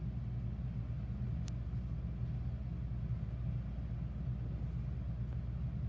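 Steady low rumble of a background machine hum, with one faint click about a second and a half in.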